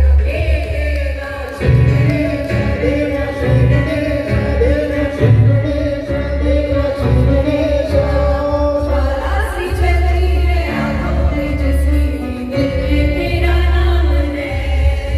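A group of singers singing a Bollywood song together into microphones over amplified instrumental backing with strong bass, through a stage sound system.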